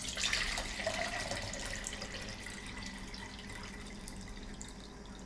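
Water poured from a glass carafe into a plastic measuring cup: a steady stream splashing as the cup fills, slowly growing quieter.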